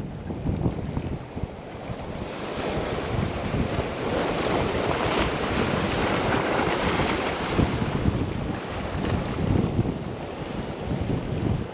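Ocean surf washing against a rocky shoreline, a steady rush that swells about two seconds in, with wind buffeting the microphone in uneven low gusts.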